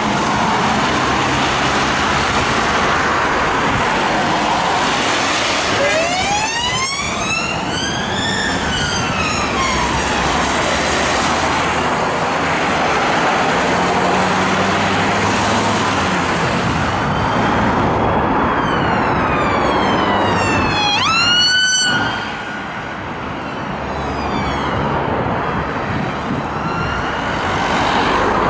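Police siren wailing over steady road traffic on a wet road. About six seconds in, one slow sweep rises and then falls. Around eighteen seconds in, more falling sweeps follow, then a quick sharp rise just after twenty seconds.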